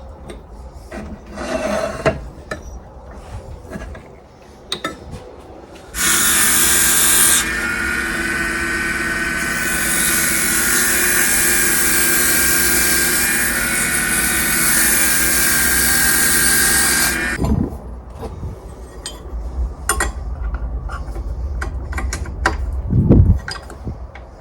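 Shop Fox W1704 mini wood lathe starting about six seconds in and running steadily with a motor whine, under a hiss from the spinning bowl blank being worked. It stops suddenly about eleven seconds later. Light clicks and knocks of handling come before and after, with a dull thump near the end.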